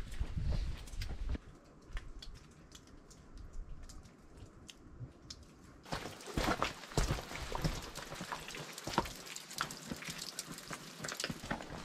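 Footsteps of hikers crunching on a rocky, leaf-strewn dirt trail. The first half holds only scattered light ticks, and the close, steady crunching steps start about six seconds in.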